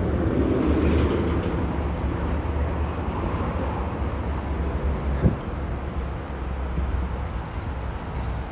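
A motor vehicle running steadily, a low rumble, with one short knock a little after five seconds in.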